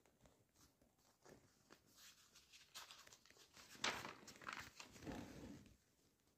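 Paper rustling as a printed exam paper's page is turned by hand, a few soft crinkles building to the loudest rustle about four seconds in and another about five seconds in, then fading out.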